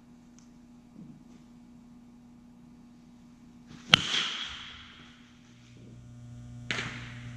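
A metal baseball bat hits a machine-pitched ball about four seconds in: a sharp crack with a ringing tone that fades over about a second. A steady electrical hum runs underneath, and another sharp smack comes near the end.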